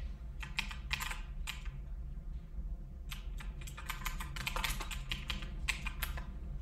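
Computer keyboard being typed on: a short run of keystrokes, a pause of about a second and a half, then a longer, quicker run of keystrokes.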